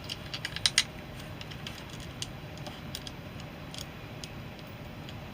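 Small sharp clicks and taps of a microphone and its new stand mount being handled, a quick cluster in the first second and then scattered single clicks, over a steady low hum.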